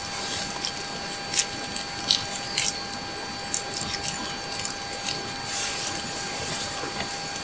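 Soft scrapes and light taps as chutney is spread over cut pieces of roll on a plate, a handful of short sounds spread through, over a steady background hiss.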